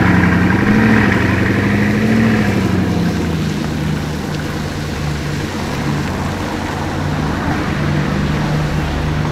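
Supercar engine running, blipped up and down a few times in the first couple of seconds, then settling to a steady idle.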